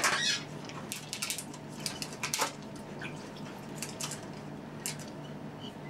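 Soft, scattered rustles and light taps of food being handled and laid on a plate at a kitchen counter, over a steady low hum.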